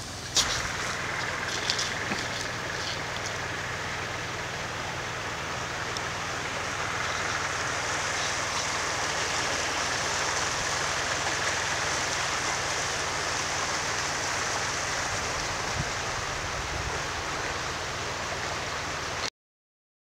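A creek running over stones, a steady rushing of water. There are a few sharp crackles in the first few seconds, and the sound cuts off abruptly just before the end.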